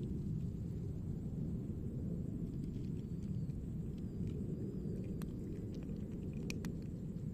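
A cat eating dry kibble, with faint, irregular crunches that come mostly in the second half, over a steady low rumble.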